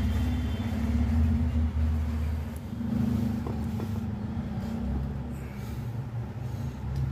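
A motor vehicle's engine running steadily, a low rumble.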